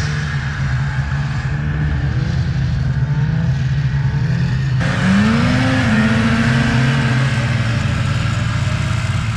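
Snowmobile engines running, a steady engine drone throughout; about five seconds in the sound changes abruptly and an engine note rises in pitch, then holds steady.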